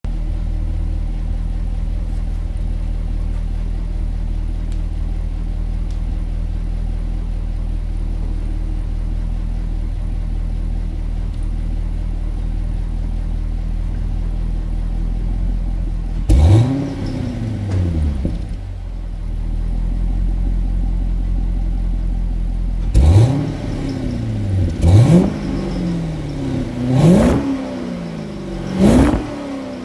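Chevrolet Corvette C6 V8 heard at its quad exhaust tips, idling steadily with the car standing still. About halfway through it is revved once, the pitch climbing and falling back to idle. Near the end it is blipped four times in quick succession, about two seconds apart.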